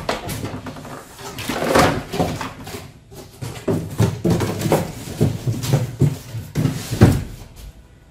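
Honda WJR4025 backpack sprayer being lifted out of its cardboard box and set down on the floor: an irregular run of knocks, bumps and rustles of its plastic tank, frame and packaging, with a louder thump near the end.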